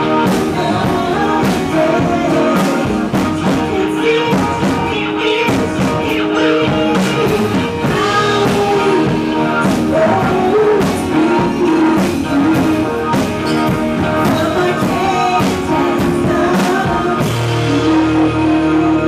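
Live band playing rock music on keyboards, guitar and drums, with a singer. Near the end the drum beat stops and steady held low tones take over.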